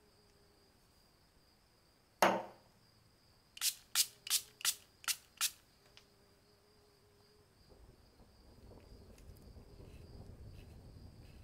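Small hard clicks from handling the restored antique lighter on its crystal stand. One sharp knock comes about two seconds in, then six quick clicks about a third of a second apart, over a faint steady high whine. A soft low rustle builds near the end.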